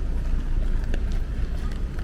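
Rainy city street ambience: a steady low rumble with scattered faint ticks and taps.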